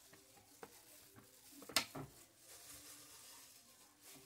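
Quiet handling sounds of a plastic-gloved hand placing cut fruit into a disposable aluminium foil pan: a few soft taps, with one sharper click a little under two seconds in.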